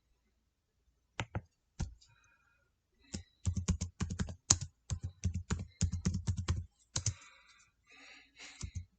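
Typing on a computer keyboard: a few key clicks, then a quick run of keystrokes for about four seconds, then a few softer, scattered clicks near the end.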